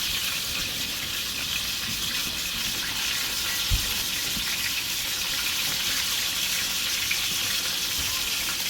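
Breaded rabbit pieces frying in hot oil in a pan: a steady, even sizzle. A single low knock about four seconds in.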